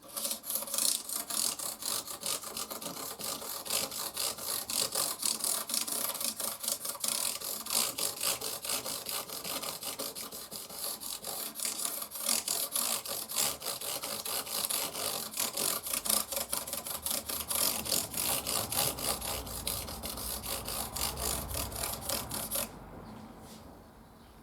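220-grit sandpaper wrapped around a dowel rubbed quickly back and forth along a guitar neck's fret ends, rounding over the freshly beveled and filed edges. The strokes stop abruptly near the end.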